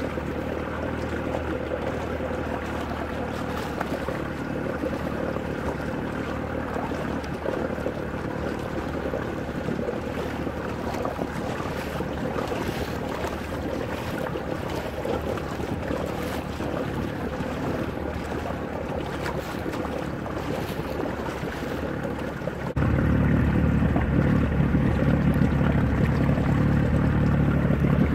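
Speedboat engine running steadily, with water washing against the hull and wind on the microphone. About 23 seconds in, the low rumble suddenly gets louder and stays up.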